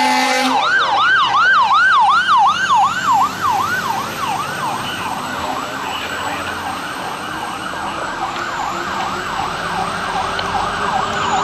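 Fire engine's electronic siren on yelp, a rapid rising-and-falling wail repeating about two to three times a second, growing fainter after a few seconds as the truck pulls away. A short horn blast sounds right at the start.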